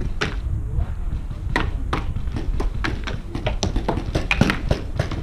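Paintball markers firing and paintballs smacking, a scattered run of sharp pops and knocks at an irregular pace, over a low wind rumble on the microphone.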